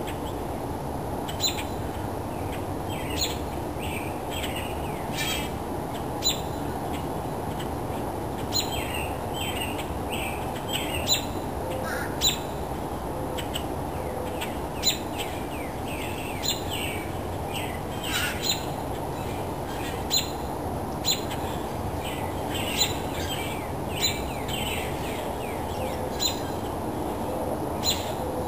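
Songbirds chirping in a morning chorus, with short sharp chips every second or two and many quick falling chirps, over a steady low rumble.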